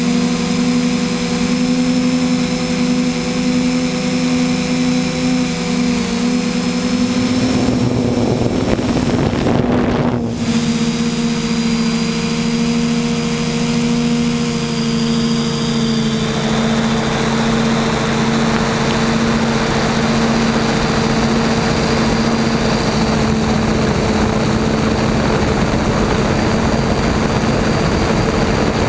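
Hexacopter's electric motors and propellers running in flight, heard close from a camera on the craft: a steady whine of several tones over a hiss. About eight seconds in the pitch shifts and blurs for a couple of seconds, and from about sixteen seconds on a louder rushing hiss joins it.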